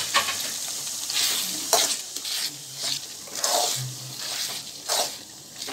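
Metal spoon stirring and scraping a sizzling biryani masala of fried onions, tomato and oil in a metal pot: repeated scraping strokes, about two a second, over a steady sizzle.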